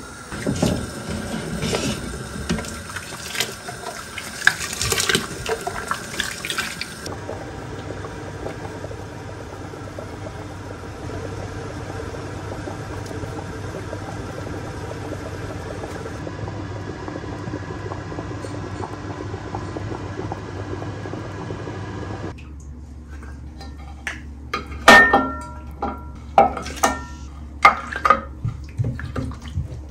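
Cooking sounds at a stove: scattered clinks and knocks of a metal pot and utensils, then a pot of broth simmering steadily for about fifteen seconds. From about 22 seconds in, a metal slotted spoon clinks sharply and repeatedly against the pot and a ceramic plate as the meat is served.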